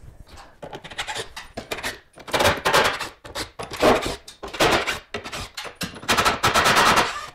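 Repeated knocks, bangs and cracks of demolition work on a hollow ceiling beam being broken open, coming in bursts, with a quick run of about eight strikes near the end.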